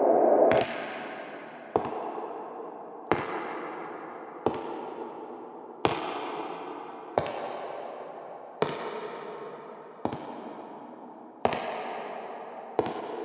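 Slow, evenly paced footsteps on hard ground, about one every second and a half, each a sharp knock with a long echo that fades before the next.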